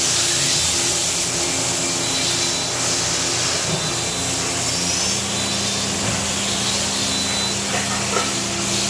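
Steady hum and hiss of running machine-shop machinery around a powered-up CNC machining center. A further low steady hum comes in about halfway through.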